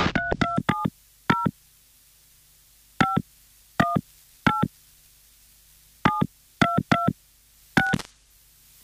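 Phone keypad tones as a number is dialled: about a dozen short two-note beeps, some in quick runs of three or four and some single, with pauses of a second or more between.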